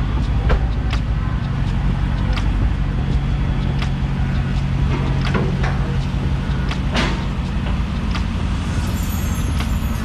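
Supercharged 6.2-litre HEMI V8 of a Dodge Charger Hellcat running steadily under way, a low drone with a held tone through the middle, and scattered short sharp ticks over it.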